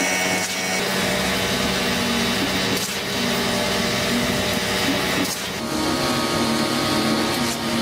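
A machine running steadily with a dense, whining motor hum made of many held tones, its pitch shifting slightly about five seconds in and again near the end.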